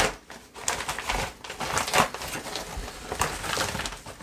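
Plastic bubble mailer crinkling and rustling as it is handled and pulled open, with irregular sharp crackles.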